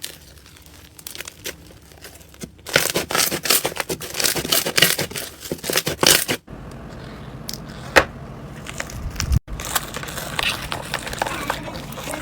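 Crunchy slime being squeezed and pressed, with a dense run of crackling and popping in the middle, then sparser sharp clicks over a low hum.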